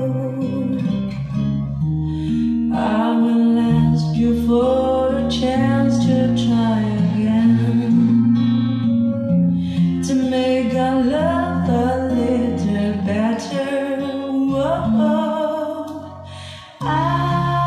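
A song with a singing voice over guitar and bass, played over hi-fi speakers driven by a Sansui AU-666 integrated amplifier. The music drops away briefly near the end and then comes back.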